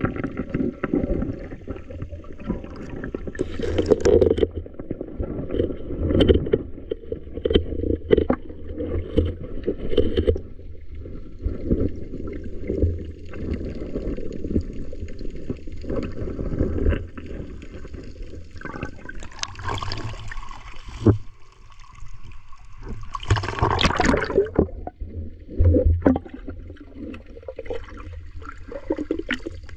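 Muffled underwater sound of sea water washing and gurgling around a submerged camera as it moves over the seabed, with two brief brighter, splashier bursts about two-thirds of the way through.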